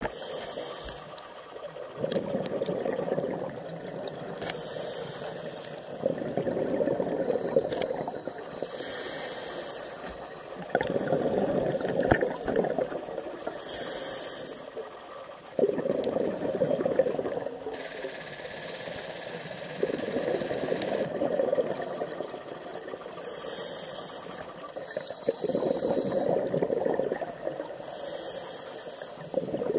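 A scuba diver breathing through a regulator, heard underwater. A short hissing inhale alternates with a louder burst of exhaled bubbles, about every four to five seconds.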